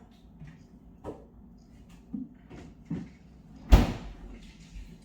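A few light knocks, then one loud thump about three and three-quarter seconds in.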